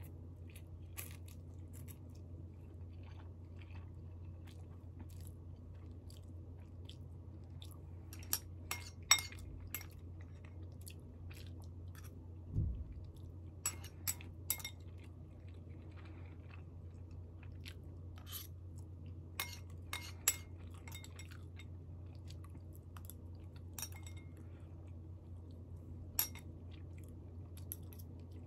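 A person eating instant noodles with chopsticks from a small bowl: quiet chewing and mouth noises, with scattered sharp clicks throughout. A steady low hum runs underneath.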